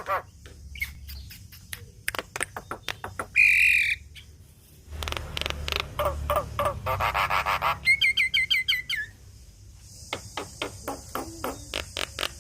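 Javan myna singing a varied, chattering song: sharp clicks, a loud harsh note about three and a half seconds in, a fast rattling run of notes, then a quick series of short high chirps.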